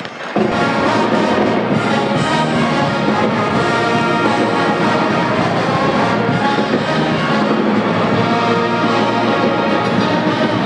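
Brass-led band music, starting abruptly about a third of a second in and playing on steadily.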